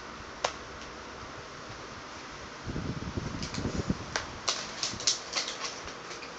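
Clear plastic blister packaging crackling and clicking as it is handled and pried open, with a low rumble of handling noise about three seconds in and a run of sharp crackles after it, over a steady background hiss.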